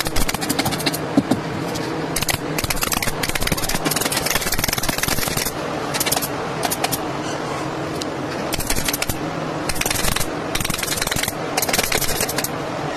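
Pneumatic upholstery staple gun firing rapid strings of staples through a quilted fabric cover into a chair base, in more than a dozen short runs of quick clicks with brief pauses between them.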